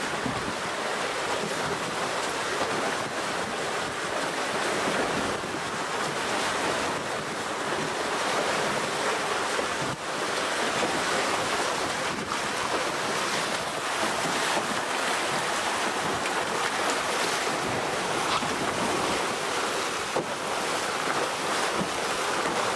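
Steady rush of wind on the microphone and water streaming past the hull of a Telstar 28 trimaran under sail.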